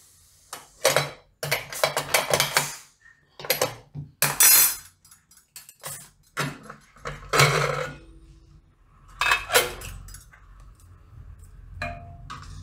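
Repeated metallic clinks and clatter as the whistle weight is lifted off a pressure cooker and the lid is worked free and opened, with a steel ladle knocking on the pot. The knocks come in quick clusters for about ten seconds, then thin out to a single clink near the end.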